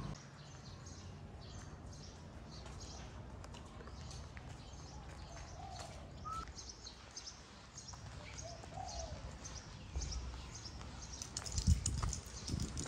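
Birds chirping, short high calls repeating over and over, with a few softer, lower calls now and then. A low bump near the end is the loudest sound.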